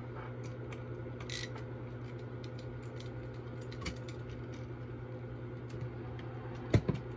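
Light clicks and taps of a screwdriver and small parts being handled while Torx screws are backed out, over a steady low hum. The two sharpest clicks come close together near the end.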